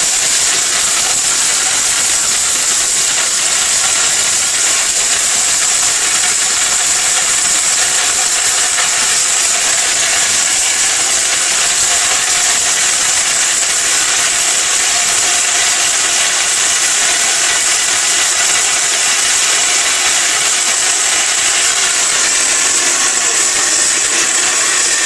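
Electric mixer grinder motor running steadily at full speed, its blades grinding dried turmeric to powder in a small stainless-steel jar: a continuous high whirring hiss.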